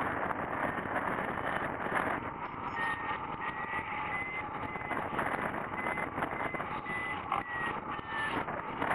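Airflow rushing over a hang glider's wing-mounted camera in flight, with a variometer beeping in a high, broken tone from about three seconds in, its pitch rising a little and then dropping near the end. The beeping is the vario's climb signal, showing the glider is in lift.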